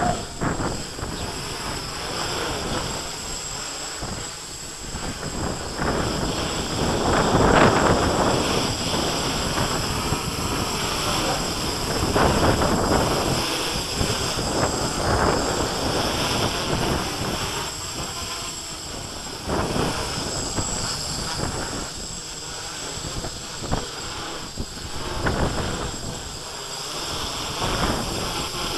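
Gusty wind buffeting the microphone, swelling and dropping every few seconds, over the buzz of a Q450 quadcopter's electric motors and propellers flying in a strong wind.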